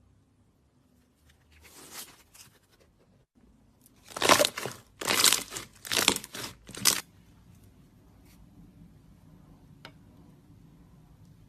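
Slime being squeezed and pressed by hand in short bursts: a faint one about two seconds in, then four loud ones between about four and seven seconds in.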